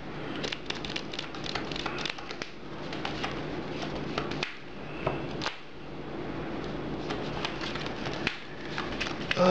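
Pokémon trading cards being handled and laid on a table: scattered light clicks and taps over a steady low hum.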